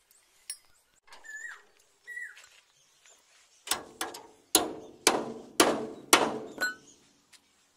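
Hammer striking the steel leaf spring and its clamp on a tractor trolley: five ringing metal blows about half a second apart, starting a little past halfway.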